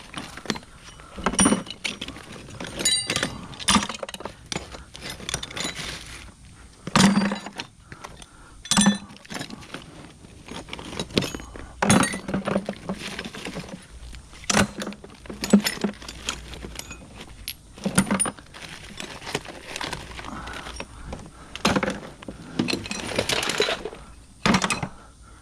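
Rusty hand tools being tossed into a bucket one after another: repeated sharp metal clanks and clinks at irregular intervals, with rattling as pieces land on each other.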